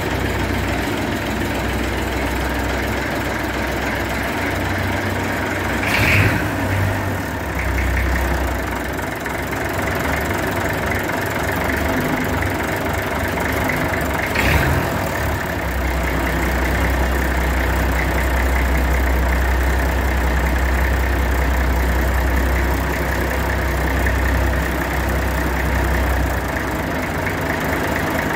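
An engine running steadily, with a low hum that swells and eases a few times. There are two short sharp sounds, about six seconds in and again about fourteen seconds in.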